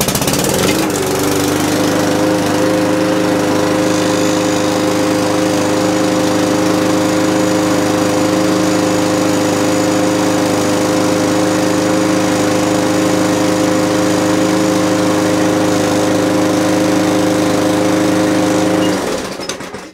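Mountfield 414 lawnmower's petrol engine, just pull-started, picking up speed in the first second or two, then running at a steady speed without hunting until it cuts off shortly before the end. To the owner it doesn't sound brilliant, and he goes on to check the spark plug.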